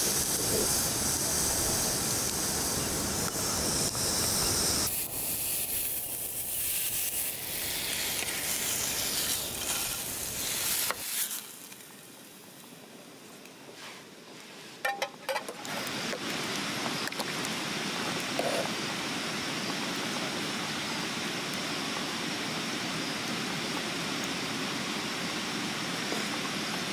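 Camp cooking: food sizzling and hissing in a pan over a camp stove, then a quieter moment with a few sharp clicks of cutlery on a wooden board, then a steady hiss again.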